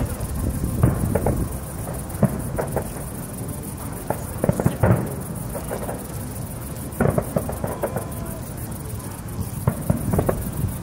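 Fireworks display: aerial shells bursting in a scattered run of sharp bangs and crackles, with clusters about five seconds and seven seconds in.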